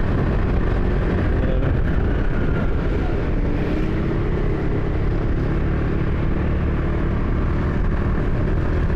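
Motorcycle engine running steadily while riding, mixed with tyre noise on a wet road.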